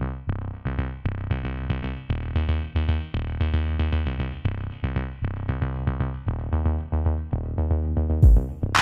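Electronic background music: a quick pattern of short synth notes over a steady bass line. Near the end a low drum hit and a bright cymbal come in.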